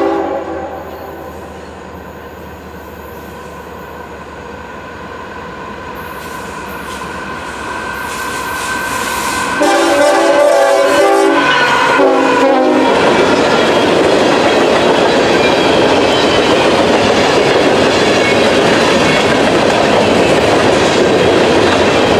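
Diesel freight train locomotive sounding its horn: a chord fading just after the start, then a long blast and a short one about ten seconds in as it nears. The train then passes close by at speed, a loud steady rumble of engines and wheels on rail with clickety-clack.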